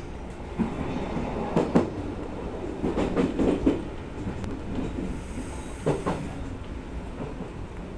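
Odakyu electric train running, heard from inside the driver's cab: a steady low rumble with the wheels knocking and clattering irregularly over points and rail joints, and a faint high-pitched squeal around five seconds in.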